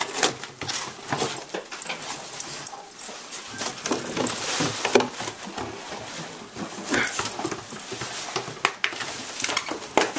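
A dog tearing apart a cardboard box, with repeated ripping, crunching and scuffling of cardboard throughout.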